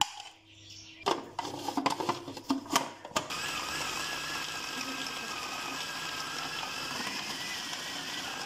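A few knocks and clatter, then from about three seconds in an electric food processor's motor runs steadily, chopping cooked chicken and lentils into a paste.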